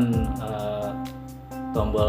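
Background music with steady held notes under a pause in the talk, with the tail of a spoken word at the very start.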